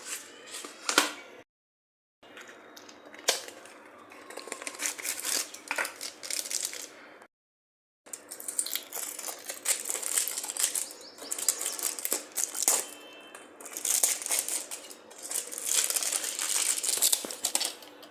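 Crinkling and rustling with scattered sharp clicks and taps from snack food and its packaging being handled. The sound cuts out completely twice, briefly, where clips are edited together.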